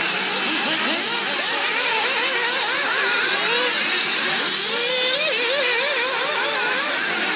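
Several nitro RC cars' small two-stroke glow engines racing together, a dense high whine whose pitches keep rising and falling as the throttles are worked.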